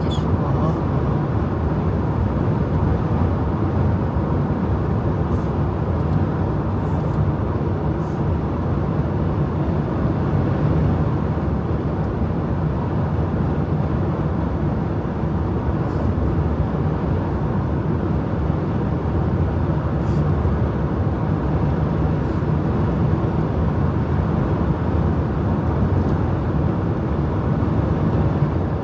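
Steady road and tyre noise with a low engine hum from a car cruising at highway speed, heard from inside the cabin.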